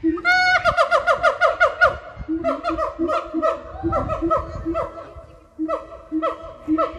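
Gibbons singing: a rapid run of short, falling whooping notes, about five a second for the first two seconds, then spaced out, with lower hooting notes alternating with the higher ones.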